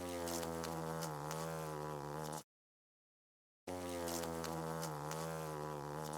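Hornet hovering, its wings buzzing with a slightly wavering pitch. The same buzz of about two and a half seconds plays twice, with a gap of about a second between.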